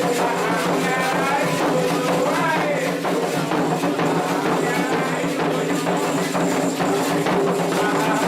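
Candomblé ritual song calling the orixás: voices singing over a steady rhythm of atabaque hand drums and struck percussion.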